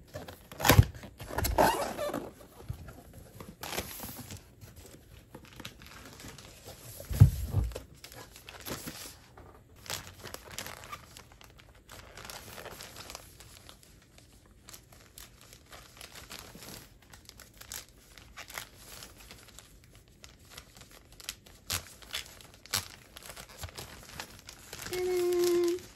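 Repeated crinkling and rustling with scattered clicks, a low thump about seven seconds in, and a short pitched sound near the end.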